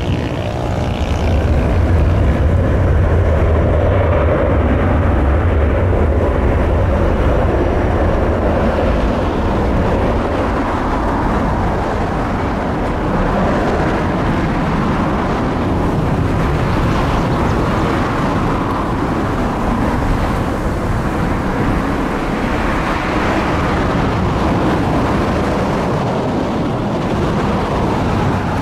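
Transavia Boeing 737's twin jet engines at takeoff power during the takeoff roll. A deep, loud rumble dominates for the first eight seconds or so, then eases into a steady, wide jet noise with slow swells as the aircraft moves away down the runway.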